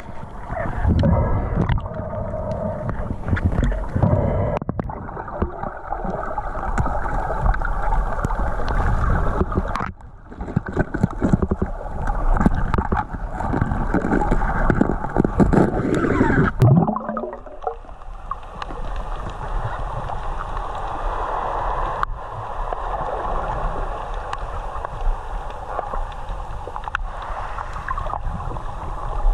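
Muffled underwater water noise and gurgling picked up by an action camera in its waterproof housing, with many clicks and knocks from the hands handling gear in the first half. About seventeen seconds in it changes abruptly to a steadier, smoother water rush.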